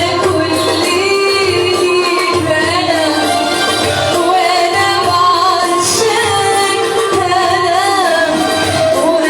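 A woman singing an Arabic song in a wavering, ornamented melody over instrumental accompaniment with a steady low beat.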